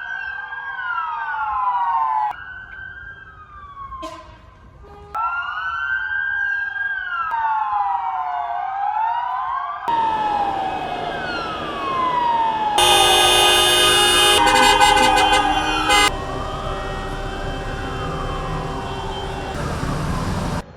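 Several wailing sirens rise and fall together: the commemorative 09:05 sirens that mark the moment of silence for Atatürk on 10 November. The sound changes abruptly several times from one recording to the next. Loud steady horn blasts join in for a few seconds past the middle.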